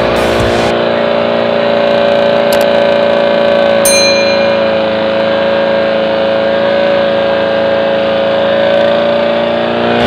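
Off-road vehicle engine held at high revs, a steady drone that wavers slightly in pitch, as the vehicle labours to drive out of deep floodwater.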